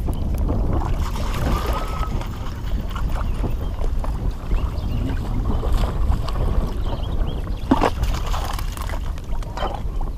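Wind buffeting the microphone over water, with a few splashes and knocks as a hooked bass is fought at the surface and brought to the landing net.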